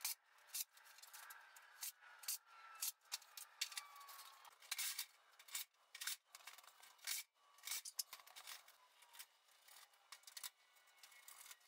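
Faint, irregular clicking and scraping of small metal hardware and screws being handled and fitted on a sheet-metal shed door panel, with many short sharp clicks.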